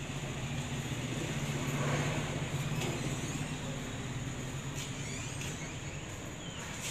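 Steady low machine drone of the curing booth's running equipment, with a few light clicks.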